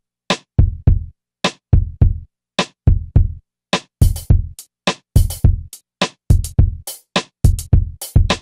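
Background music: a programmed drum-machine beat of kick and snare hits with clean gaps between them, growing busier about halfway through.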